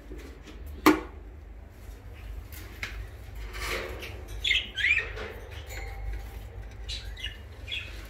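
Budgerigars chirping in short, quick calls that glide up and down in pitch, in a few bursts. A single sharp clank from the wire cage comes about a second in.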